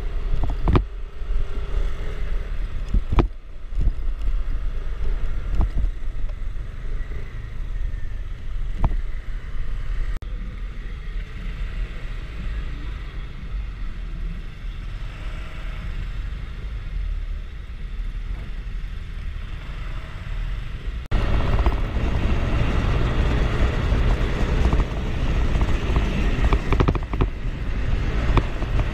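Motor scooter on the move: wind rushing over the microphone and road noise, with the scooter's engine running beneath. The level steps up suddenly about two-thirds of the way through.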